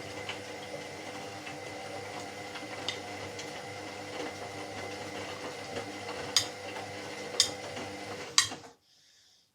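Washing machine running with a steady hum and a faint high whine, light clicks and rattles throughout. Near the end come three sharp knocks about a second apart, then the sound stops abruptly.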